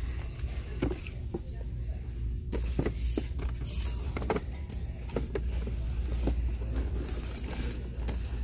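Store-aisle ambience: a steady low rumble with a scatter of light knocks and clicks.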